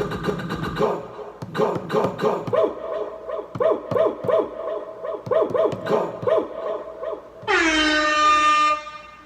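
JBL PartyBox 1000 party speaker playing DJ-pad effects: a run of quick, repeated scratch effects, then an air-horn effect about seven and a half seconds in, held for about a second and a half.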